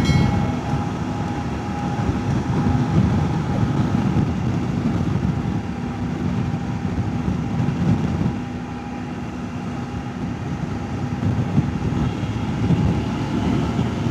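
Wind rushing and buffeting over a rider's helmet-mounted microphone at road speed, over the steady hum of the CFMoto 800MT X engine. The windscreen extender is raised to cut the wind. The engine tone drops away near the end.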